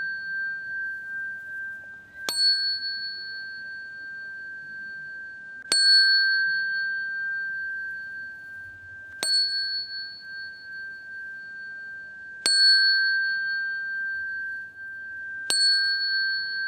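A small Buddhist ritual bell (qing) struck five times, about every three seconds, each stroke ringing on as a clear high tone until the next. The strokes pace the bows to the Buddha.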